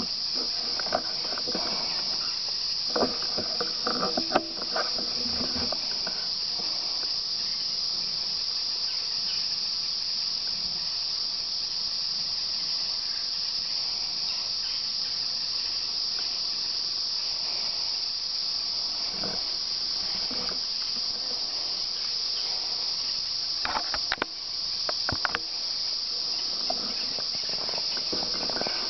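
A steady, high-pitched insect chorus buzzing without a break. Scattered rustles and clicks come in the first few seconds and again about 24 seconds in.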